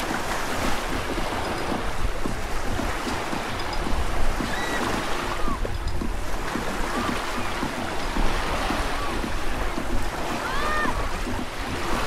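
Small waves washing onto a sandy shore, with wind rumbling on the microphone.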